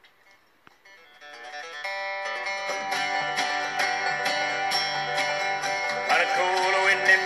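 Acoustic guitar playing a country song's intro, fading up about a second in to a steady picked and strummed part, played back through a computer speaker.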